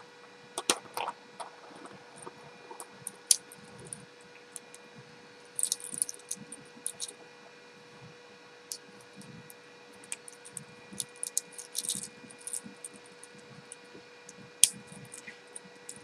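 Clear polycarbonate snap rings clicking against each other as they are handled and snapped closed while being woven into Euro 4-in-1 chainmail. The sharp plastic clicks are scattered, some in quick clusters, over a faint steady hum.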